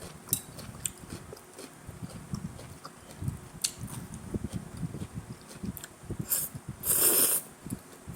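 Close-up chewing and mouth sounds of someone eating stir-fried pancit canton noodles with cabbage: many small wet clicks, with a couple of louder noisy bursts near the end.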